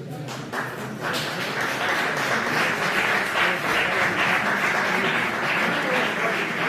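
Spectators clapping, with some voices mixed in, the clapping coming in about a second in and carrying on steadily.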